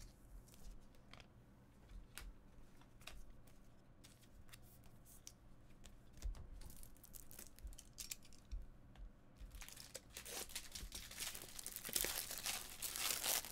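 Faint clicks of trading cards being handled, then from about ten seconds in, a card pack wrapper being torn open and crinkled.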